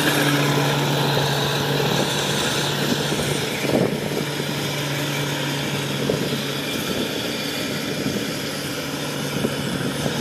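Kubota DC-105X rice combine harvester running while cutting and threshing rice: a steady low diesel engine hum under the constant rushing noise of the machinery. The hum fades about two-thirds of the way through, while the machine noise carries on.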